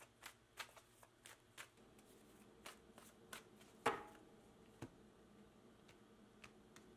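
A deck of oracle cards being shuffled by hand: a run of quick, faint card flicks and snaps that thin out after a couple of seconds, with one sharper snap about four seconds in.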